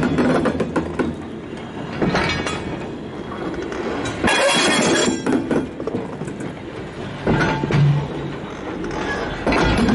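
Freight wagons rolling slowly over the rail, their wheels clattering across a rail joint. The loud clatter comes as each bogie passes, about every two to three seconds, with steady rolling rumble in between.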